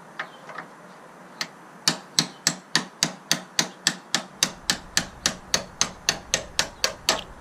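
Hammer tapping a tool to drive the old, corroded liner out of a Jeep Wrangler JK's top door hinge: a few light taps, then a steady run of about twenty sharp strikes, roughly three or four a second, that stops shortly before the end.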